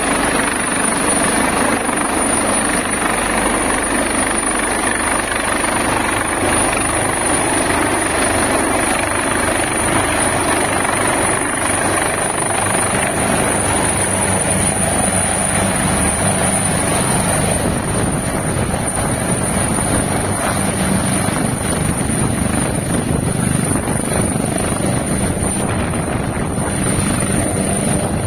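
Helicopter descending and touching down, its rotor and turbine noise loud and steady, with a steady high whine above it.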